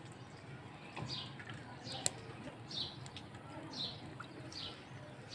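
A bird calling repeatedly: short, falling chirps about once a second, with one sharp click about two seconds in.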